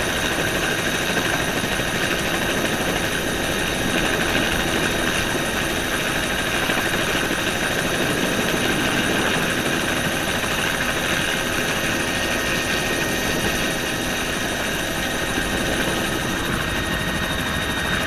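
Bell helicopter's engine and rotor running steadily while it taxis low over the tarmac, a constant drone with a steady high whine.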